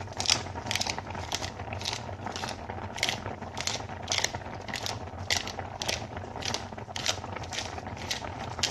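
Salt grinder being twisted by hand, its burrs crunching salt crystals in short, even strokes about three times a second.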